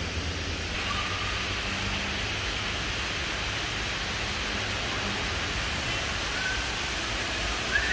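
Steady outdoor background noise: an even hiss over a low hum, with a few brief faint high tones about a second in, past the middle, and near the end.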